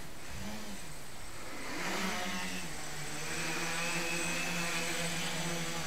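Homebrew quadcopter's motors and propellers: a brief rise and fall in pitch near the start, then about two seconds in they spin up and settle into a steady hum.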